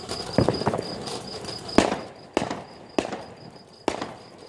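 Ground firework fountain spraying sparks with a hissing crackle, broken by about four sharp bangs in the second half. A cricket chirps steadily in the background.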